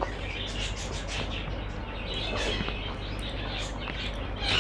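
Close-up chewing of rice and dal with wet mouth clicks and smacks, and the squish of fingers mixing dal-soaked rice on a plate.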